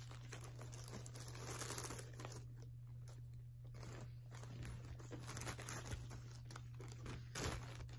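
Thin plastic bag crinkling and rustling as it is handled and crumpled, on and off.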